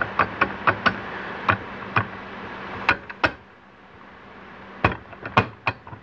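Sharp metal clicks and clacks from 4L80E transmission parts being fitted and turned by hand on the output shaft as a ring is seated in its drum: a quick run of clicks in the first second, then scattered ones, over a faint steady hum.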